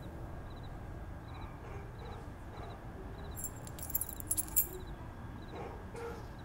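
Quiet night ambience: a steady low hiss with a soft high chirp repeating about every three quarters of a second. A few light metallic jingling clicks come a little past halfway.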